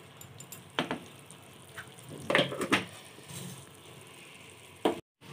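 Kitchen utensil knocks: a wooden spatula and a pan tapping and clanking on a gas stove. There is a sharp knock about a second in, a louder pair of clanks in the middle, and one more just before the end.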